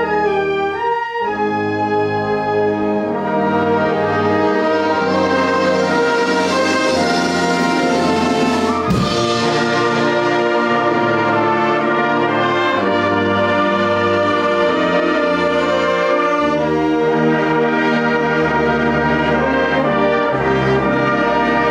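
A wind band of brass and saxophones playing a piece together, the brass to the fore over a steady bass line.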